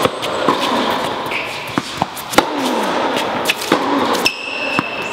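Tennis rally on an indoor court: sharp pops of balls struck by rackets and bouncing on the court, several in a few seconds, ringing in a large hall.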